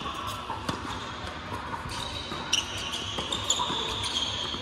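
Tennis balls struck by rackets during a doubles rally on a hard court: a few sharp pops, the loudest about two and a half and three and a half seconds in.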